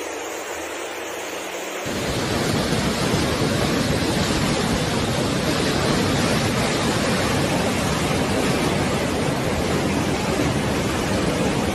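Fast floodwater rushing through a street: a steady, loud rush of churning water. It is thinner and quieter at first, then turns suddenly fuller and louder about two seconds in.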